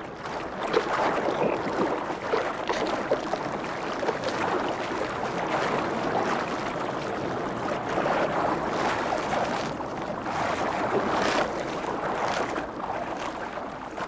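Sea water splashing and sloshing at the surface, a continuous rushing noise that swells and fades, with a sharper splash about eleven seconds in.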